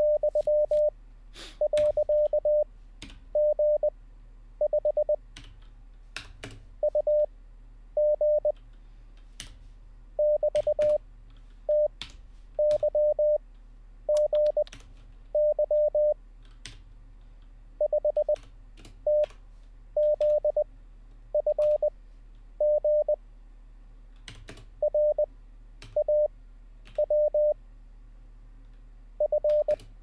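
Computer-generated Morse code practice: random characters sent as a 600 Hz tone at 20 wpm character speed, each a short group of dits and dahs, with long gaps between characters for an effective 5 wpm (Farnsworth timing). Keystrokes on a computer keyboard fall between the characters as they are copied by typing.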